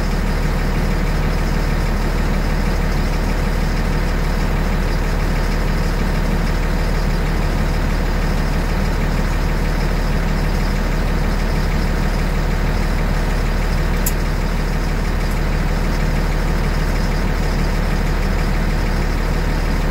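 An LMTV military truck's diesel engine idling steadily, heard from inside the cab, while it builds pressure in the air tanks. A single sharp click about two-thirds of the way through.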